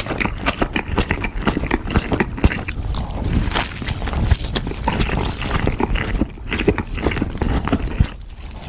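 Close-miked wet chewing and lip-smacking of cheese-sauce-coated fried chicken nuggets: a dense run of quick sticky mouth clicks and smacks, easing off near the end.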